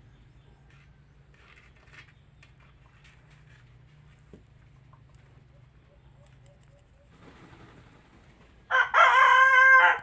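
A rooster crows once, loud, near the end, after several seconds of faint background sound.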